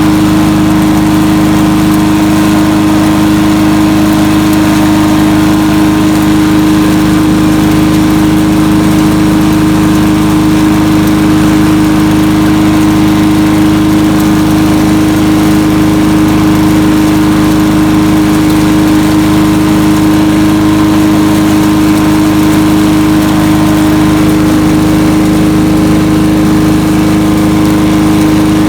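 Landworks 7 hp chipper shredder's gas engine running steadily, a loud, even drone with a strong hum.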